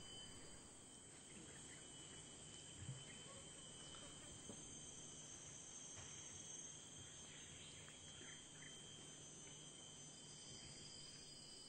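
Near silence: faint outdoor ambience with a steady high-pitched chirring of insects, and one soft knock about three seconds in.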